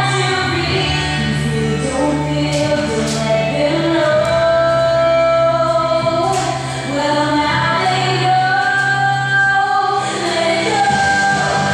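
A song with a woman singing long held notes over a steady low bass line and backing voices: the skater's program music.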